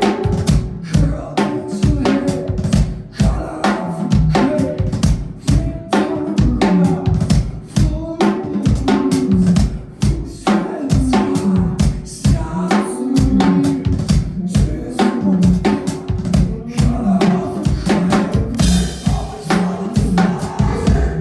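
Loud live band music: a drum kit hit fast and hard, kick, snare and rimshots, over sustained bass or synth notes. A brighter hissing wash comes in near the end.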